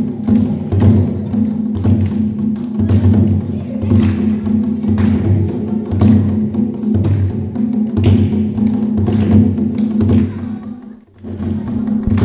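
Dance music led by percussion, with a steady low drum beat and sharp strokes over a sustained tone. It briefly drops out near the end.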